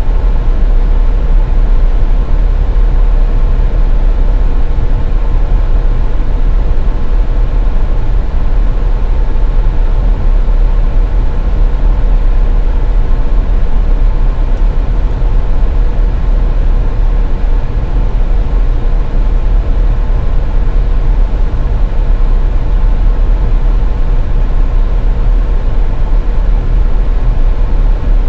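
Steady low rumble of a car driving: road and tyre noise, with a faint constant hum over it.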